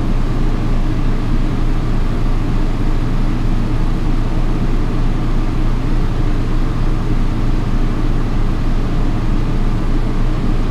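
Steady low machine hum from running equipment, holding an even level and pitch.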